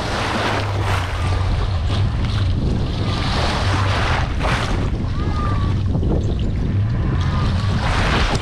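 Water churning and splashing in a pickup truck bed lined with black plastic sheeting, in surges, over a steady low hum and wind on the microphone.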